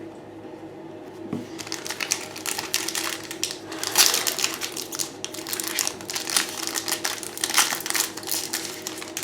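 Crinkling and rustling of a foil trading-card pack wrapper being handled, in irregular crackly bursts that start about a second and a half in.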